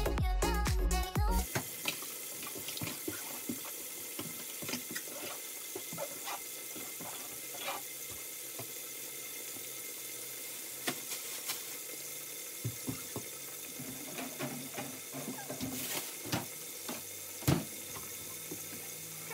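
Background music cuts off about a second in, leaving a steady rush of running water with scattered light clicks and knocks, and a sharper knock near the end.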